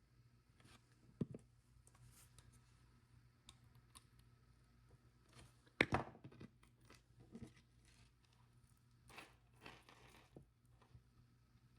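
Faint small clicks and light rustling from handling a jump ring and necklace clasp, with a sharp click about a second in and the loudest little clatter about six seconds in.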